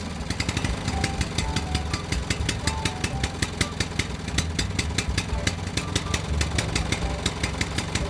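Engine idling steadily with a low rumble and a fast, even clatter.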